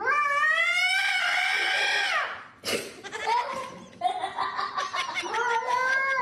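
A cat yowling in long drawn-out calls that rise and fall in pitch, with a short noisy burst a little over two seconds in and more calls after it.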